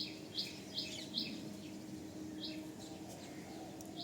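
A small bird chirping: short, high calls in quick succession, four in the first second or so and one more a little past the middle, over a faint steady low hum.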